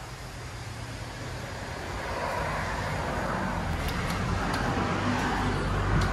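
Street traffic: a passing motor vehicle's engine and tyre noise, growing steadily louder.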